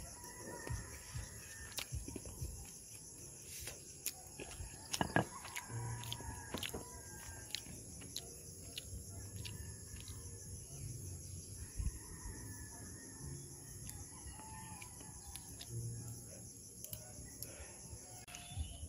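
Chickens clucking and a rooster crowing, with scattered sharp crackles from the wood fire burning under the pot.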